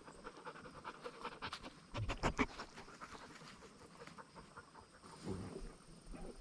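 Animal noises with a dense cluster of clicks and knocks about two seconds in, the loudest part, and another low burst near the end.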